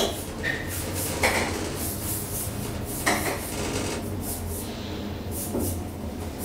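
KONE hydraulic elevator travelling: a steady low hum of the hydraulic drive, with short scrapes and knocks every second or two.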